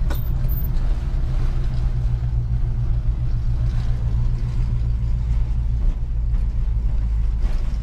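Pickup truck driving, its engine and road noise a steady low rumble heard from inside the cab.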